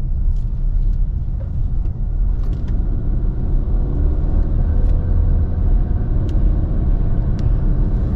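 Car driving along, heard from inside the cabin: a steady low rumble of road and engine noise.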